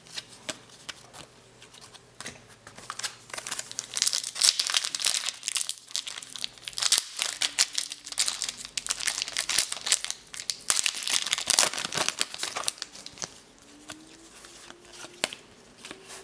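Shiny plastic wrapper of a basketball card pack being torn open and crinkled by hand: a dense run of crackling from about three seconds in until shortly before the end, with quieter rustling of cards handled around it.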